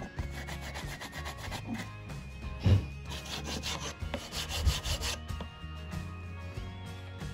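A steel file rasps back and forth in a groove carved into a wooden slingshot stock, in quick repeated strokes. There is one louder knock about two and a half seconds in, and the strokes stop about five seconds in. Background music plays throughout.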